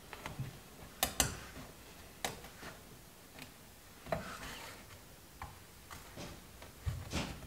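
Irregular light clicks and knocks with some cloth rustling, from hands working a cloth headliner into place along a car's roof edge. The sharpest clicks come about a second in and near the end.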